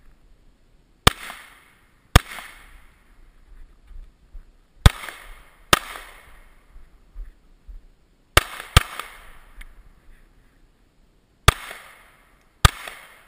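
Pistol shots: eight in all, fired in pairs with pauses of a few seconds between pairs, each shot followed by a short echo.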